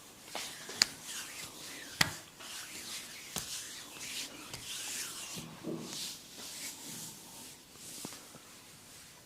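Hands rubbing and scratching over skin and hair in a massage, a swishing, scratchy sound, with a few sharp clicks in the first few seconds, the loudest about one and two seconds in.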